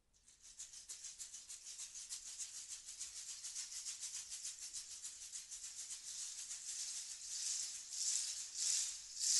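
Chilean rainstick: a dense, high pattering cascade of pebbles that starts suddenly and grows steadily louder, turning near the end into rhythmic swells.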